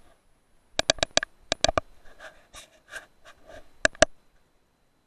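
Sharp clicks in quick groups of two to four, from the buttons of a digital night-vision rifle scope being pressed, with soft rustling between them.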